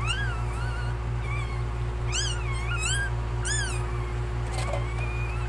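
Newborn Shih Tzu puppy crying: about seven short, high-pitched mewing squeals that rise and fall, several in quick succession from about two seconds in, over a steady low hum. The sound cuts off abruptly near the end.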